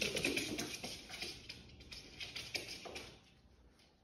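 A small dog's claws clicking rapidly on a hard wooden floor as it runs off, the clicks fading and stopping about three seconds in.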